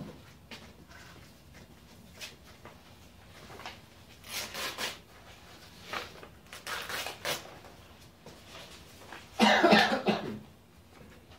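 A white mesh laundry bag being handled and shaken out, rustling in a few short bursts, with a louder burst of sound near the end.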